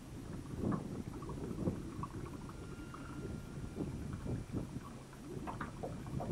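Small waves lapping and slapping against the hull of a small boat, with wind buffeting the microphone.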